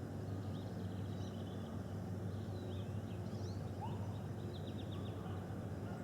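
Small birds chirping and trilling in short bursts over a steady low rumble.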